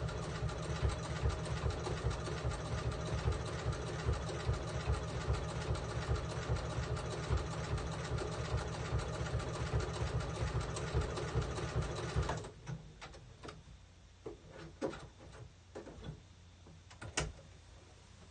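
Sewing machine running fast, stitching an appliqué letter onto a towel with a rapid, even rhythm. It stops abruptly about twelve seconds in, and a few light clicks and handling knocks follow.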